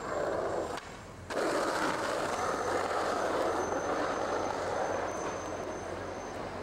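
Skateboard wheels rolling fast down rough asphalt: a steady rushing rumble that drops away briefly about a second in, then comes back louder.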